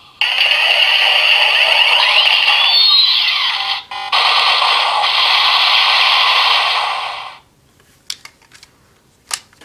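DX Attache Shotgun toy's speaker playing its electronic Punching Kaban Shot finisher effect: a long loud blast sound with crisscrossing whistling sweeps about three seconds in, fading out about seven seconds in. A few light clicks follow.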